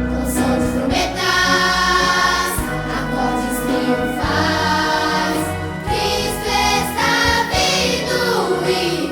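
Children's choir singing a gospel hymn in Portuguese over instrumental accompaniment, holding long notes.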